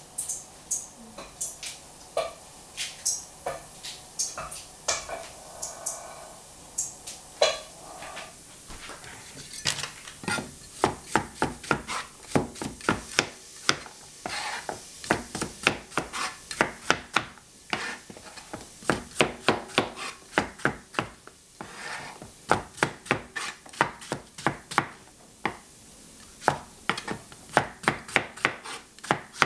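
A rectangular cleaver chopping yellow squash and zucchini on a plastic cutting board. The knocks come scattered at first, then from about ten seconds in they run on fast and steady.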